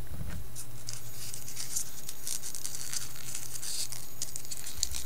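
Faint scratching and light ticking of small plastic phone parts being handled as a BlackBerry Curve's trackball and trackball ring are fitted, over a steady low hum.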